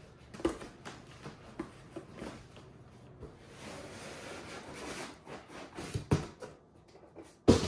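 Cardboard box being opened and unpacked by hand: flaps and packing scraping and rustling with small clicks, then a single loud thump near the end as a tool bag is lifted out against the table.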